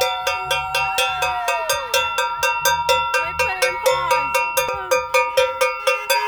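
Handheld cowbell beaten in a fast, steady rhythm, about four or five strikes a second, each strike ringing on.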